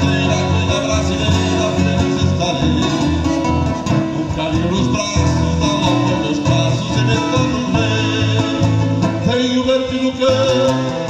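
Live gaúcho folk music played on a piano accordion and two acoustic guitars, the accordion holding sustained chords over strummed and plucked guitar.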